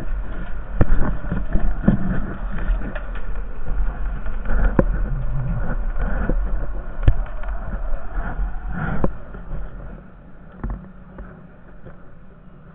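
Honda Foreman 450 ES ATV engine running with a steady low rumble, with scattered knocks and clunks over it; it gets quieter about ten seconds in.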